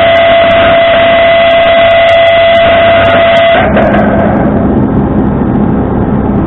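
Tow truck running with a steady high-pitched whine that cuts off suddenly about halfway through, leaving a lower, rougher engine noise.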